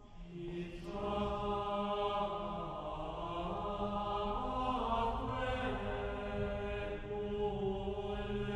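Slow choral chant: voices singing long held notes that change pitch slowly, swelling slightly about a second in.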